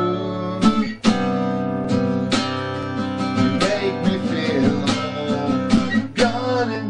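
Guitar strummed in slow chords, a stroke roughly every two-thirds of a second, each chord ringing on between strokes.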